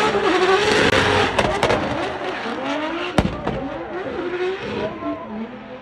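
Drift car's engine revving up and down as it slides, with its tyres skidding, and a single sharp bang about three seconds in. The sound fades toward the end.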